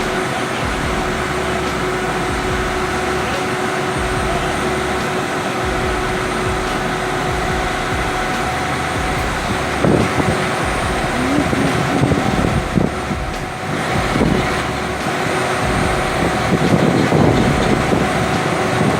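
Heavy vehicle or machinery engine running steadily amid outdoor site noise, with louder irregular knocks and rumbles in the second half.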